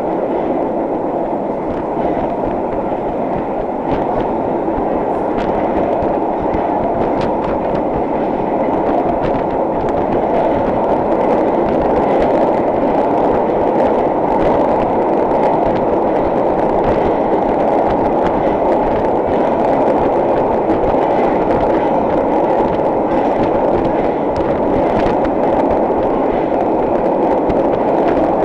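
Vintage IRT Low-V subway car running at speed, heard from inside the car: a steady loud rumble of steel wheels on the rails with a few faint clicks, growing slightly louder over the first ten seconds or so.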